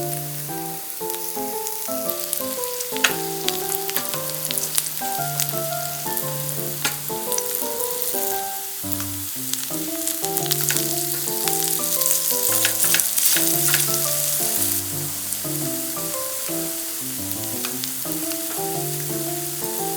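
Batter pancakes of glutinous rice flour and honey-soaked radish strips frying in a pan of oil: a steady sizzle with scattered sharp crackles, swelling louder about two-thirds of the way in. Soft background music plays underneath.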